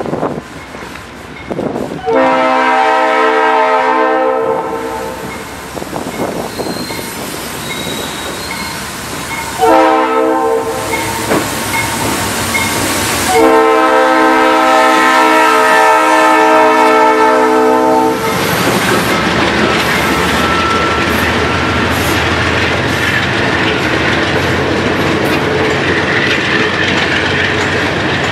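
A diesel locomotive's air horn sounds three blasts as the train approaches: long, short, then long. After that comes the steady rumble and clickety-clack of the passenger coaches rolling past.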